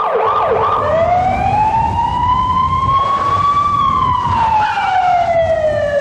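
Police car siren: a few quick yelping sweeps, then one long wail that climbs slowly and falls away through the second half, with a low rumble underneath.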